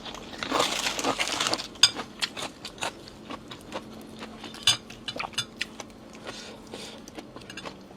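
Someone eating a bowl of pork noodle soup: a noisy slurping stretch for the first second and a half, then scattered clicks and clinks of utensils against the bowl, mixed with chewing.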